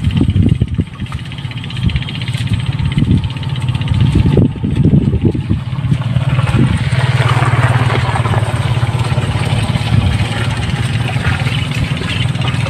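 Wind buffeting the microphone, then a small engine running steadily from about halfway on.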